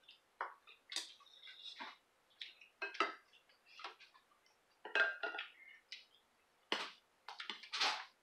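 Spoons clinking and scraping against bowls while food is eaten and served, in a run of irregular short clicks and knocks, loudest near the end.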